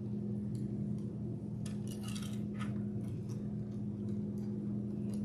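Small clicks and rustles of plastic beads and plastic lacing cord being handled and pulled, with a cluster of clicks about two seconds in, over a steady low hum.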